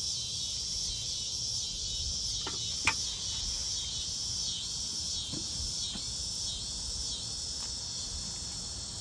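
Cicadas singing in a steady, high-pitched chorus, with a single sharp click about three seconds in.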